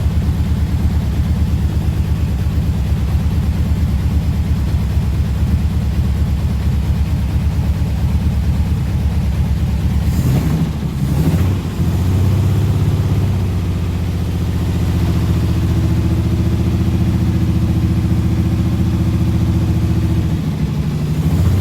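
The SS Jaguar 3½ Litre's straight-six engine running steadily on test. About halfway through the note breaks briefly, then settles into a slightly different steady pitch.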